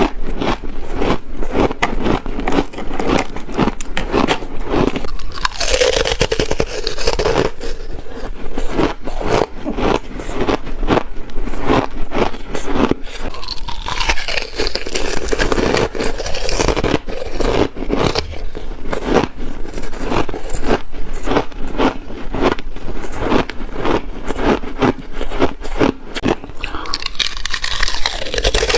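Close-up crunching of thin ice being bitten and chewed, a dense run of sharp cracks and crackles with no pause.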